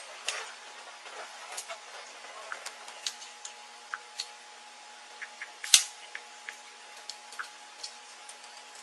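Metal handcuffs clicking as they are worked onto a child's wrists: scattered small clicks and taps, with one sharp, louder click a little past halfway. The wrists are too small for the cuffs to hold.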